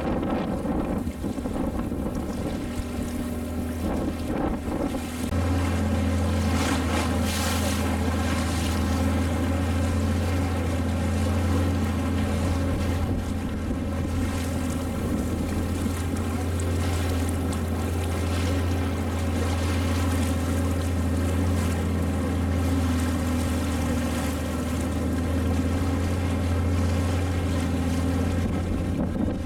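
Engine of a small motorboat running steadily under way, its low hum growing louder about five seconds in and then holding, with wind buffeting the microphone.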